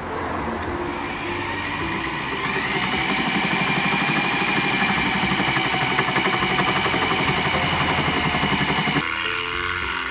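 Corded electric drill running under load, a step drill bit grinding a hole through a thin metal strip. The motor and cutting noise build over the first two seconds, hold steady, and change abruptly about nine seconds in.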